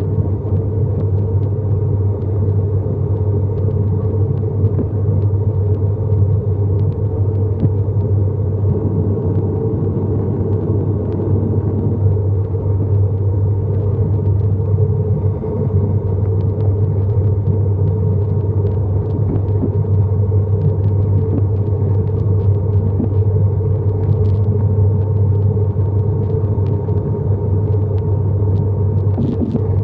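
Inside the cabin of an ATR 72-600, its turboprop engines and propellers make a loud, steady low drone during the climb after takeoff, with an even rushing noise over it.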